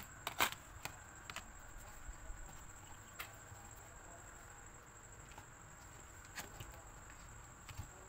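Light clicks and taps of plastic as a dismantled hair dryer's housing and fan are handled, a quick cluster in the first half second and a few more scattered through, over a faint steady high-pitched tone.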